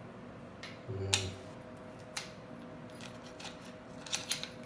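Chrome shower tap handle clicking against the brass valve spindle and wall escutcheon as it is handled and pushed onto the spindle: scattered sharp metal clicks, with a quick cluster near the end.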